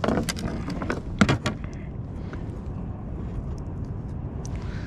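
Handling noises on a kayak as a freshly unhooked small halibut and its dropshot rig are held: a few sharp clicks and knocks in the first second and a half, then a low steady rumble.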